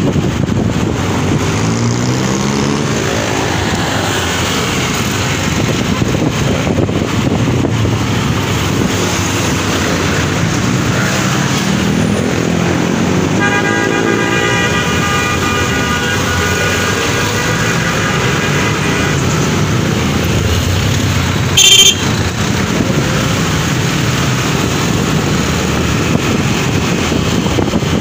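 Honda CB125 motorcycle's single-cylinder four-stroke engine running in city traffic, revving up and easing off a few times. A vehicle horn sounds steadily for about five seconds midway, and a brief, loud sharp sound, the loudest moment, comes about three-quarters of the way through.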